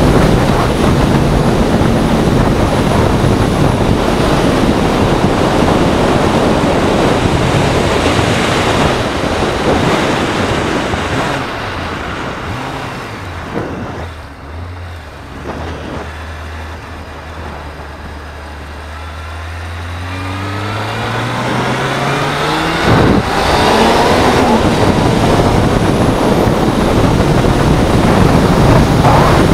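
Honda CBR600F3 inline-four engine with wind rush, heard from the bike while riding. The engine drops to a low, steady note as the bike slows almost to a stop halfway through. It then revs up again as the bike accelerates away, with a sharp click about two-thirds of the way in, and runs loud to the end.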